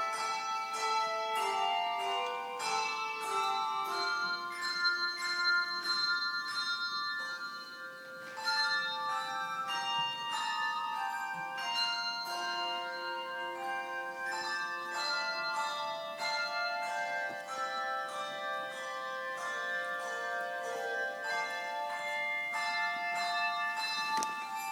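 Handbell choir playing a piece: many struck handbells ringing overlapping, sustained notes. A short lull comes about eight seconds in, then the bells come back in together.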